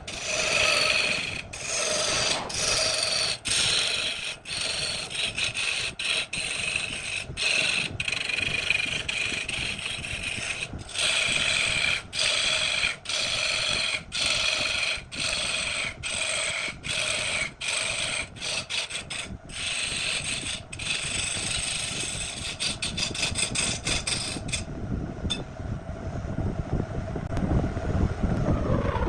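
A turning tool cutting into a wood blank spinning on a lathe: a scraping hiss with a ringing tone, broken by many short pauses as the tool lifts off and goes back in. About 25 seconds in the cutting stops, leaving the lathe running.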